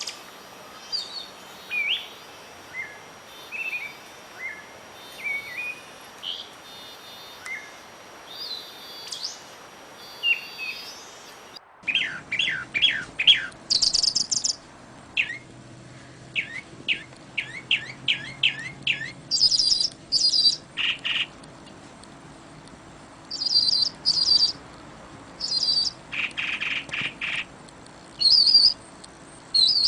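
Wild songbirds chirping and calling over a soft steady hiss. About twelve seconds in, the sound switches abruptly to a louder, busier run of quick repeated chirps and rapid trills.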